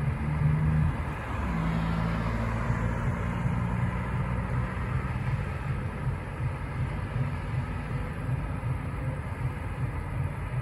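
Road traffic: a steady low rumble of passing cars and tyres, with a low engine hum that steps up in pitch about a second and a half in.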